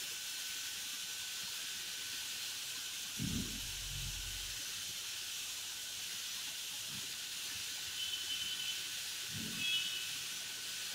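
Automatic jet car wash spraying high-pressure water in a steady hiss, with a low thud about three seconds in and another near the end.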